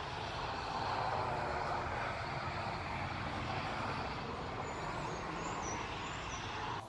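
Steady distant engine drone, swelling about a second in and then slowly easing off.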